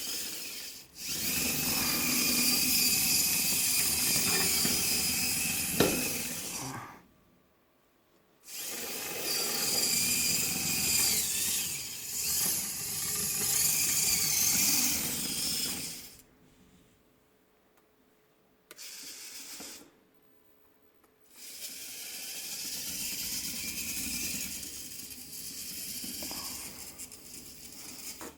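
3D-printed rover crawler's continuous-rotation hobby servos and plastic gear train whirring as it drives, in runs of several seconds with short stops between, and one sharp click about six seconds in.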